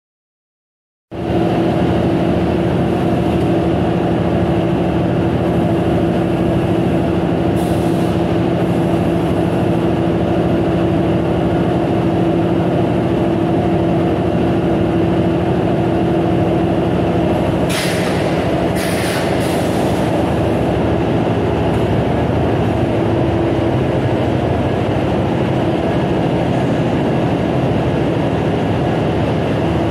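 Fiber cement board production line machinery running: a steady mechanical din with a constant hum, starting about a second in. Short high hissing noises come about eight seconds in and again several times about eighteen to twenty seconds in.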